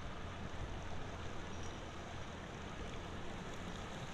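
Outboard motor idling as a boat moves slowly across the water: a faint, steady low hum under an even outdoor hiss.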